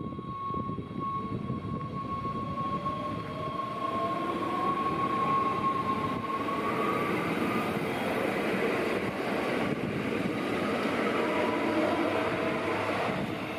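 NS Sprinter Lighttrain (SLT) electric multiple unit passing at close range: wheels rumbling on the rails, with an electric traction whine that rises in pitch. The rumble swells about four seconds in and stays strong until near the end.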